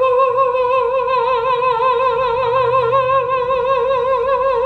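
A woman singing one long held note with a steady, even vibrato.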